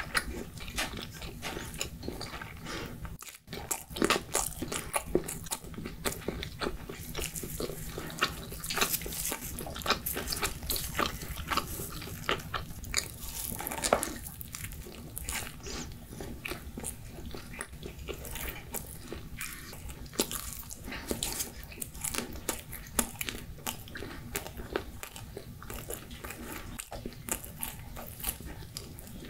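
Close-miked chewing of pizza: a dense run of small crunches and clicks, busier and louder in the first half.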